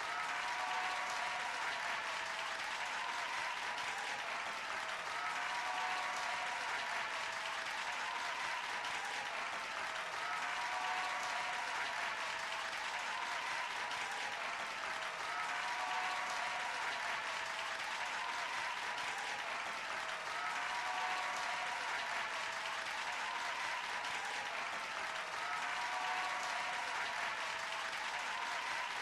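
An audience applauding: many people clapping at once in a dense, even patter that holds steady without letting up.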